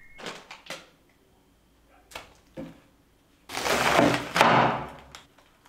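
A kitchen knife cutting through a raw head of cabbage on a wooden board: a loud rough cutting sound about a second and a half long, in two strokes, near the end. Before it come a few light taps and knocks of rice cake pieces being set down on the board.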